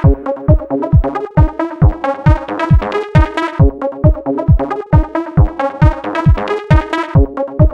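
Electronic dance music: a steady kick drum a little over twice a second under synthesizer chords.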